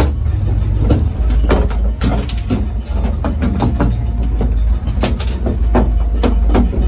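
Enclosed lifeboat's engine running with a steady low rumble, heard from inside the hull. Sharp knocks and clatter of gear sound over it, the loudest about five seconds in.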